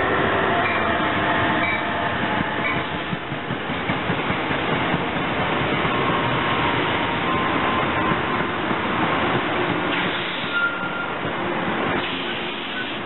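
NJT ALP-46 electric locomotive and Comet passenger coaches rolling past close by, a steady loud rumble of steel wheels on rail. Whining tones come near the start as the locomotive goes by, and short high squeals about six and ten seconds in.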